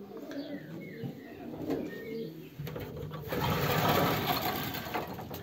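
Racing pigeons cooing softly in the loft. About three seconds in, a louder rustling noise sets in for a couple of seconds.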